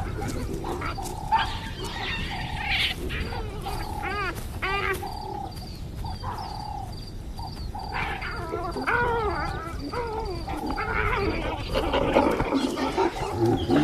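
Wild animal calls: a string of short, arched, pitched calls that come and go, busier near the end, over a faint steady background.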